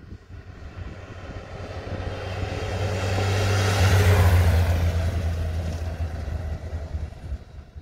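A touring motorcycle riding past: its engine note grows louder as it approaches, is loudest as it passes close by about four seconds in, then fades away.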